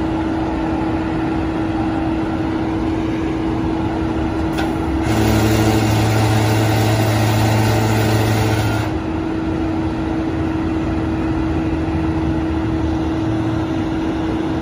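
Flatbed tow truck engine running steadily with a constant hum. About five seconds in, a louder, deeper drone joins for roughly four seconds, then cuts off, as if a load such as the winch or bed hydraulics comes on.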